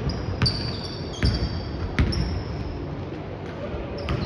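Basketball being dribbled on a court: three bounces a little under a second apart, then another near the end. Short high squeaks, typical of sneakers on the floor, come between them.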